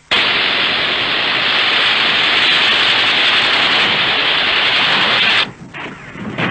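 Loud, steady static-like hiss that starts abruptly and cuts out sharply about five and a half seconds in, leaving a brief quieter gap.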